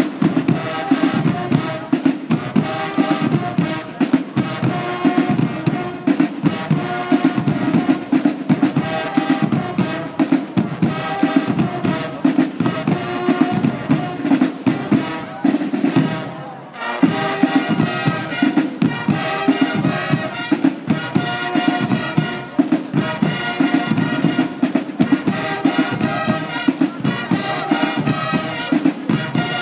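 Fanfare band playing: a row of marching side drums beats a fast, steady rhythm under brass fanfare horns. The music breaks off briefly about sixteen seconds in, then the drums and horns start again.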